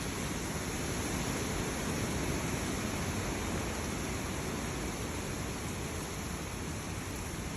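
Heavy rain pouring down in a storm, a steady, even rush.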